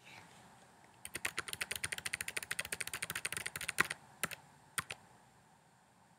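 Computer keyboard typing: a quick run of keystrokes entering a card number and its details, followed by two separate single clicks.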